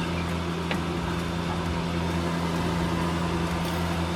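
Steady electric hum of a kitchen appliance's motor and fan, one even drone with no change in pitch.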